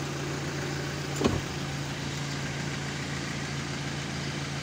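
Car engine idling steadily with a low hum while the car stands still. One brief, sharper sound cuts in about a second in.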